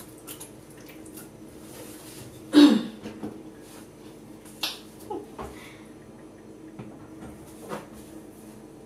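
Scattered small clicks and taps, with one louder knock about two and a half seconds in.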